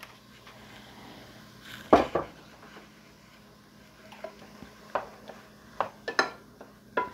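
A single loud knock about two seconds in, then a spatula stirring and tossing broccoli in a frying pan, with scattered scrapes and taps against the pan in the last few seconds.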